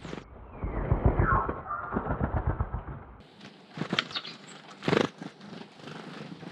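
Small birds' wings fluttering close by, a rapid low purring whirr for about three seconds. After that come a few sharp taps, the loudest about five seconds in.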